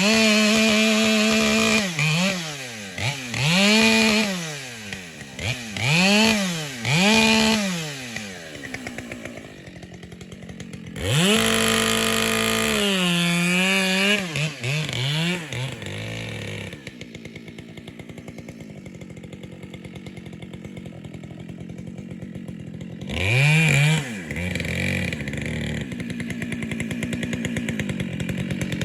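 Two-stroke chainsaw limbing a felled tree: the engine revs up in short bursts every couple of seconds, then holds high revs for a few seconds in the middle. After that it drops back to a lower running speed, with one more brief rev near the end.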